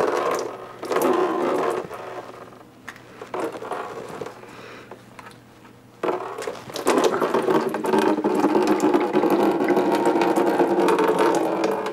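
Clicks and knocks as a hose clamp and coolant hose are worked off an engine's coolant pump. From about six seconds in comes a steady, loud stream of engine coolant splashing into a drain pan as the cooling system drains.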